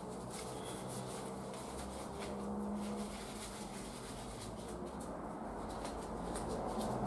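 Steady background hum of road traffic, with faint, slowly wavering engine drone and no distinct single sounds.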